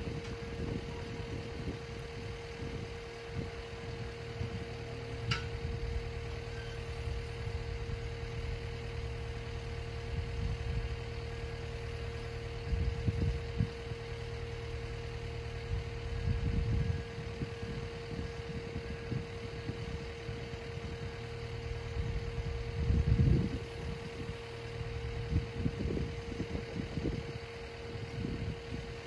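Engine running steadily with a constant hum, swelling a few times into louder low rumbles.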